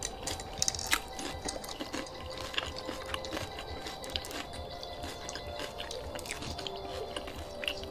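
Close-up eating sounds: wet chewing, lip smacks and sharp clicks scattered irregularly, with faint background music.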